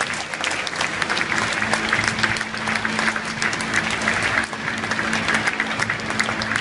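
Stadium crowd applauding, a dense patter of many hands clapping, with music from the public-address system running underneath.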